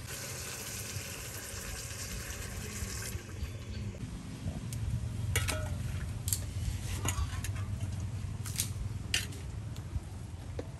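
Water in a large aluminium pot over a wood fire, with a steady hiss for the first three seconds, then several sharp clinks of metal pots and dishes being handled.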